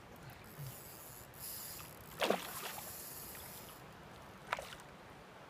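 A hooked salmon thrashing at the surface while being played on a line: water hissing and churning, with a loud splash about two seconds in and a shorter, sharper splash near the end.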